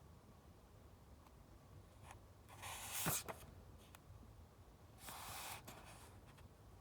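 Paper rustling as book pages are turned, two short swishes about two seconds apart, the first ending in a sharp tap.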